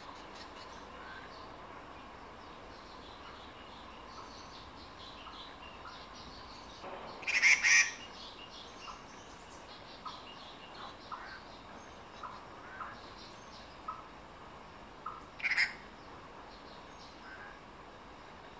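Forest birds calling: a scatter of short chirps throughout, with two loud harsh calls, a longer one about seven seconds in and a shorter one about fifteen seconds in.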